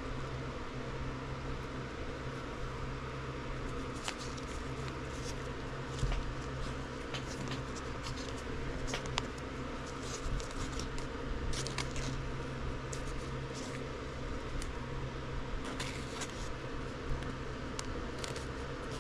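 Trading cards and plastic card sleeves being handled: scattered light rustles and clicks, starting about four seconds in, over a steady low room hum.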